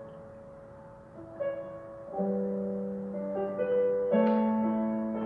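Slow, soft keyboard music: sustained piano-like chords, with new chords struck about two seconds in and again about four seconds in.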